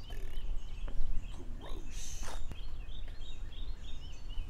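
Songbird chirping in a quick run of short, repeated high notes over a steady low outdoor rumble, with a brief rustle about two seconds in.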